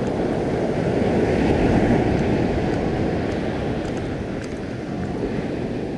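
Ocean surf breaking and washing up the beach, with wind rumbling on the microphone; the noise swells a little a second or two in.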